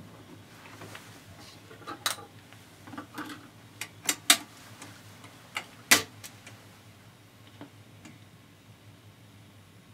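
Clicks and knocks from 1950s 45 rpm record players being handled: tone arm lifted and set, changer mechanism and controls clicking, about eight sharp clicks scattered through, the loudest about four and six seconds in. A faint steady low hum runs underneath.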